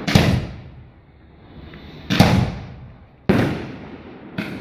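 Aerial fireworks bursting overhead: three loud bangs a second or two apart, each dying away in an echo, and a smaller bang near the end.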